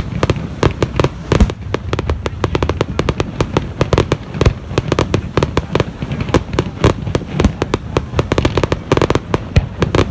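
Fireworks display: a dense, continuous run of sharp bangs and crackles, several each second, over a low rumble.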